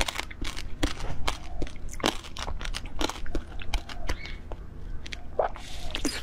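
Close-up mouth sounds of biting into and chewing a soft jelly ball: a fast, irregular run of wet clicks and smacks, several a second.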